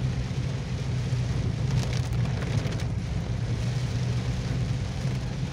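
Heavy rain beating on a vehicle's windscreen and body, heard from inside the cabin over the steady low rumble of the vehicle driving on the wet road.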